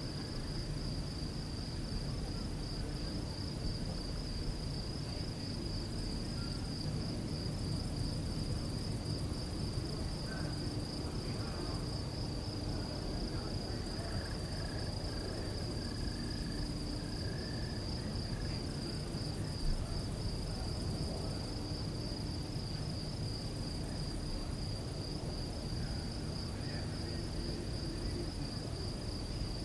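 Crickets chirping in a steady night chorus, a continuous high pulsing trill over a low background rumble.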